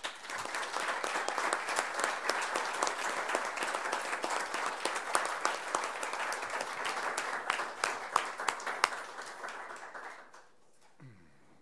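Audience applauding: a dense patter of many hands clapping that fades away about ten seconds in.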